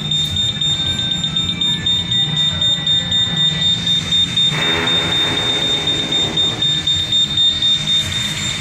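Fire alarm system sounding one continuous, steady high-pitched tone while the system is in alarm during a function test, over a low hum; a voice is heard briefly about halfway through.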